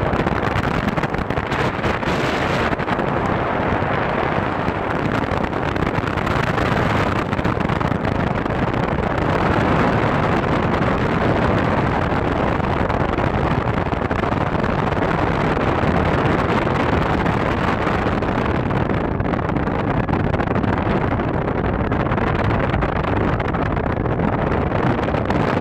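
Steady road noise from a car driving along a gravel road: tyres rolling on gravel and the engine running, with wind rushing over the microphone.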